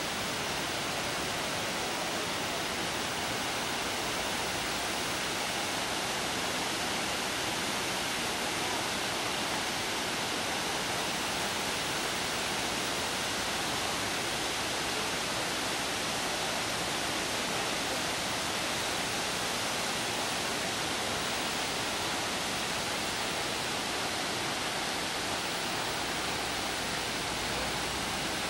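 Steady, even rush of a waterfall cascading down rock ledges, with one brief click at the start.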